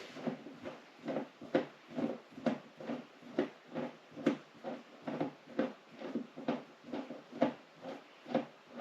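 Mounting bolts being driven by hand into a TV's stand bracket with a hand tool, a steady rhythm of short turning strokes a little over two a second.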